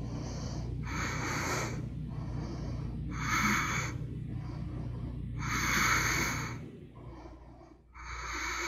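A woman breathing audibly with the effort of holding a core-strengthening leg lift, four strong breaths about two seconds apart with softer ones between.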